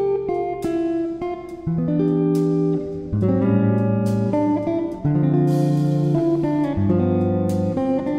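Background music: an instrumental with chords changing every second or so.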